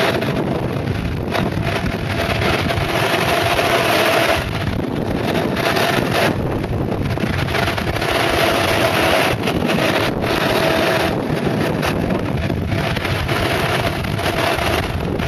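Wind rushing over the microphone while a mountainboard's pneumatic tyres roll fast on asphalt downhill: a loud, steady rush with a faint hum that comes and goes.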